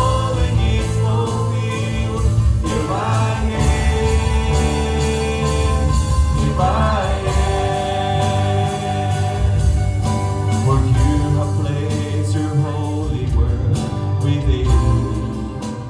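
Music: a worship song with band accompaniment and singing.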